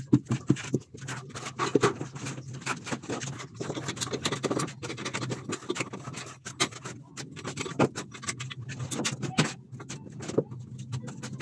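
Irregular clicks, knocks and scrapes of metal framing pieces being handled and set down on a workbench, over a steady low hum.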